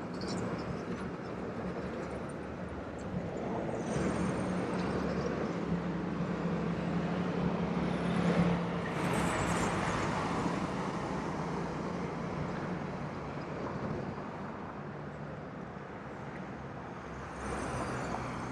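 Street traffic: cars and trucks driving past, a steady road noise with one vehicle's low engine hum swelling loudest about eight to nine seconds in.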